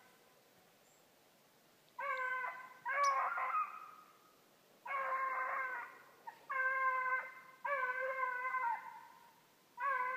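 Five-month-old beagles baying on a rabbit's track: six drawn-out, steady-pitched bawls, each about a second long, coming one to two seconds apart.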